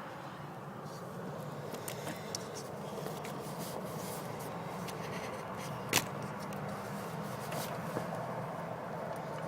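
Jeep Liberty CRD's 2.8-litre four-cylinder turbodiesel running with a steady low hum. Scattered light ticks run through it, and a single sharp click comes about six seconds in.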